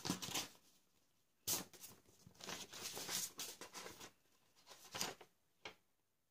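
Paper rustling in several short bursts as a letter is opened by hand, with one longer stretch of rustling in the middle and a brief crackle near the end.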